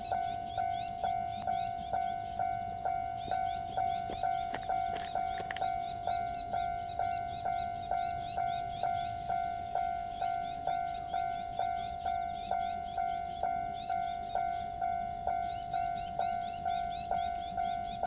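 Railway level-crossing warning bell ringing steadily at about two strikes a second, the signal that a train is approaching. A continuous high insect trill runs underneath.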